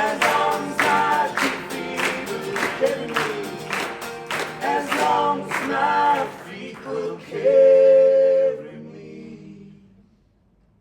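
Unplugged live pop song ending: singing over rhythmically strummed acoustic guitar. It closes on one long held note that fades away to near silence.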